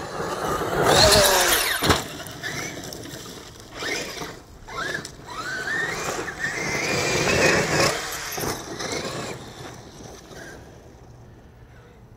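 Traxxas X-Maxx 8S RC monster truck's brushless electric motor whining up and down in pitch as it repeatedly accelerates and slows, with its tyres spraying dirt and gravel. The loudest passes come about a second in and again around seven seconds, and the sound fades near the end as the truck drives off.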